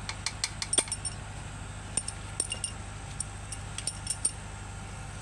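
Steel wrenches and sockets clinking against each other: a string of light metallic clinks in three short clusters, over a steady low hum.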